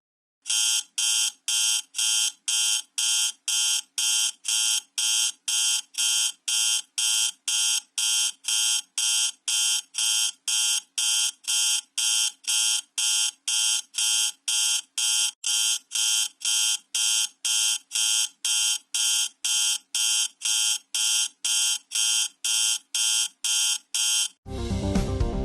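Control-panel warning buzzer beeping in a steady, even pulse, a little over two short buzzy beeps a second, the standard warning or danger alarm. The beeping stops near the end and music begins.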